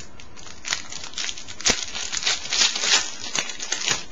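Foil wrapper of a trading-card pack crinkling as it is torn open, a run of crackles with one sharp snap about a second and a half in.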